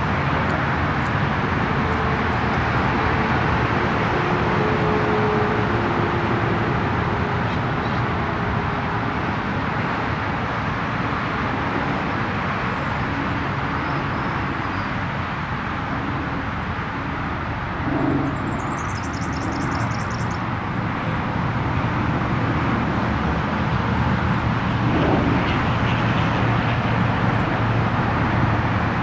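Steady wind rumble and buffeting on the camera microphone, with a brief faint high chirping trill about two-thirds of the way through.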